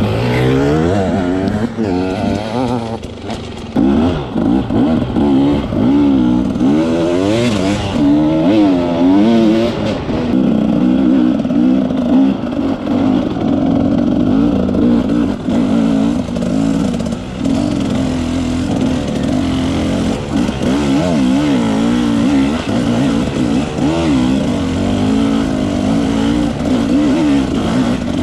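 Dirt-bike engine heard on board, revving up and down over and over as the bike rides a rough trail, its pitch swinging quickly with throttle and gear changes and holding steadier for a few seconds near the middle.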